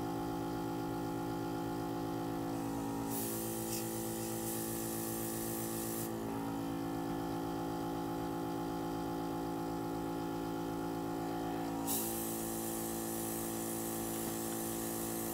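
Airbrush compressor humming steadily, with the airbrush hissing in two spells of a few seconds, about three seconds in and again near the end, as air is blown onto the wet alcohol ink; the compressor's hum shifts slightly in pitch while the air flows.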